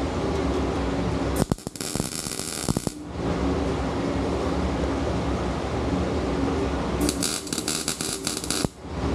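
Power-tool work on a steel motorcycle fender: a steady motor hum, broken twice by harsh, hissy stretches of about one and a half seconds each.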